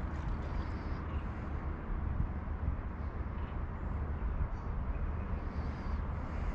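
Steady outdoor background noise with a strong low rumble and a few faint, short, high chirps.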